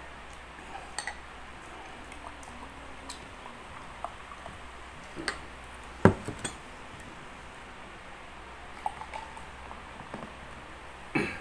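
Scattered clinks and taps of a metal fork on a ceramic plate and a glass soda bottle being handled at the table, with a sharper knock about six seconds in and another near the end.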